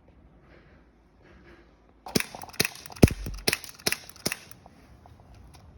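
Air gun fired rapidly in semi-automatic: a quick string of about eight to ten sharp pops, starting about two seconds in and lasting about two and a half seconds.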